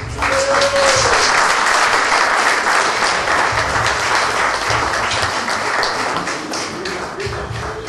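Audience applauding, starting suddenly and slowly dying down.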